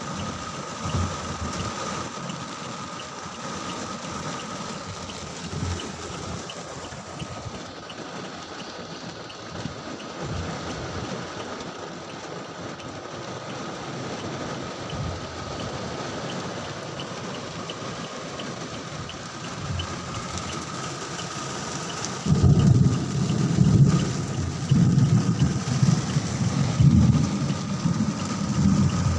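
Steady rain falling. About 22 seconds in, a loud, uneven low rumble starts and continues until near the end.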